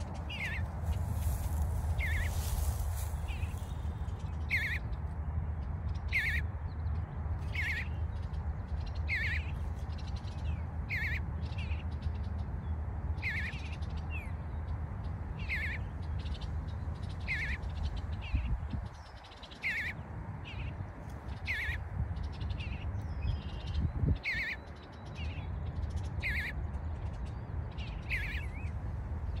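Bluebird giving a short, falling call over and over, about one call every second and a half, over a low steady rumble.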